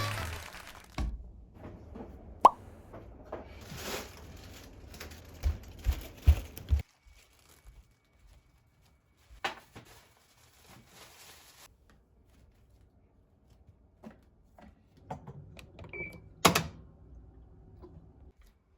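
Small household handling sounds: a series of light knocks, clicks and thuds of objects being set down and moved, with short stretches of rustling, the sharpest knocks about two and a half seconds in and near the end.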